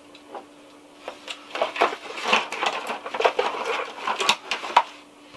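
Small hard plastic action figures clicking and clattering as they are handled and rummaged through: a quick, irregular run of knocks that starts about a second in and stops shortly before the end.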